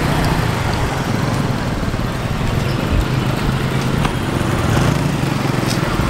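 Street traffic: small motorbike engines running and passing, with cars, over steady wind noise on the microphone from riding a bicycle.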